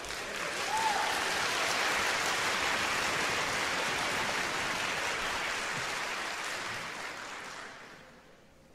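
Audience applauding in a concert hall, a dense even clatter of clapping that dies away near the end.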